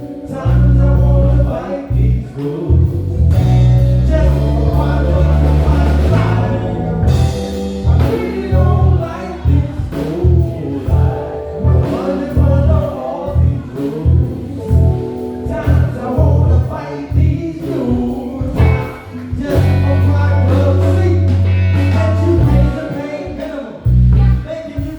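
Live band music: electric bass and drums driving a steady groove under keys and a lead melody line.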